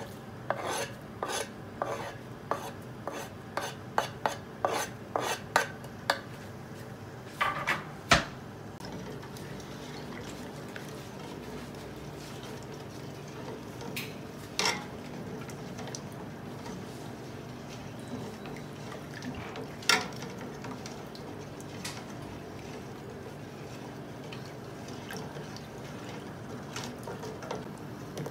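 Metal spoon scraping and tapping against a wooden chopping board and the rim of a metal pot, a quick run of clicks with a sharp knock at about eight seconds. After that, the spoon stirring coconut milk in the pot, quiet with an occasional clink.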